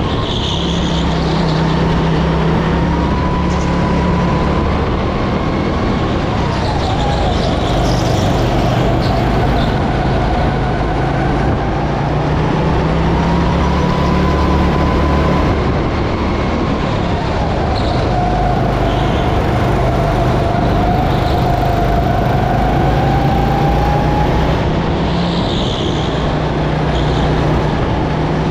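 Go-kart engine running hard on track, its pitch falling twice as the kart slows for corners and rising again as it accelerates out onto the straights.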